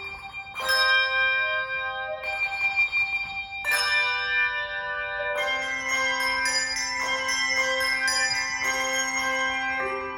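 Adult handbell choir playing: struck chords ring on and overlap, about one every second and a half at first, then quicker notes over a held low bell from about halfway.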